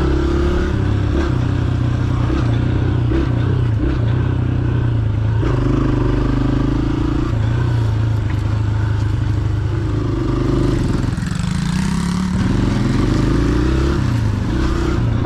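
A motor vehicle engine running steadily, then revving up with a rising pitch about twelve seconds in.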